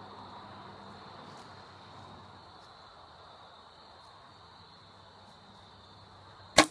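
Crickets chirring steadily in a high, even drone; near the end a single sharp, loud crack of a compound bow being shot.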